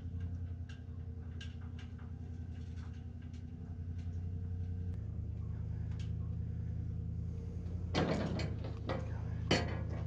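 Backhoe engine idling steadily, with scattered light clicks and knocks, a rattling clatter about eight seconds in and a sharp bang about a second and a half later.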